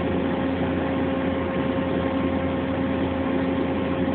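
Steady machinery hum in a machine shop, with a few constant tones over an even drone.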